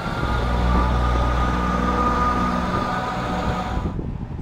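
A ScotRail Class 158 diesel multiple unit's underfloor diesel engines running as the train passes: a steady low engine drone with a faint higher whine over it. The sound cuts off abruptly near the end.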